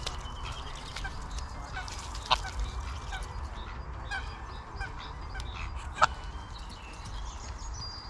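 Geese honking: two loud honks, about two seconds in and again about six seconds in, among many short, softer bird calls, over a steady low rumble.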